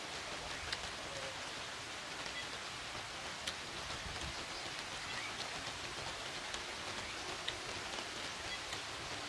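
A steady, rain-like hiss with scattered small clicks and ticks.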